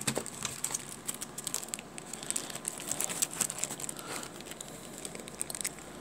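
Clear plastic packaging crinkling as it is handled, a thin plastic sleeve and a clear plastic tray giving many small, irregular crackles.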